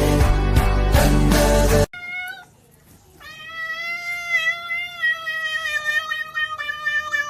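Music cuts off about two seconds in. Then a cat gives a short meow and, after a brief pause, a long drawn-out meow that slowly falls in pitch and turns wavering toward the end.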